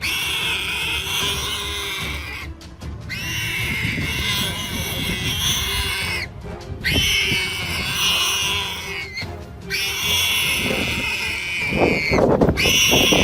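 Wild boar squealing in long, high cries of a few seconds each with short breaks between, over background music.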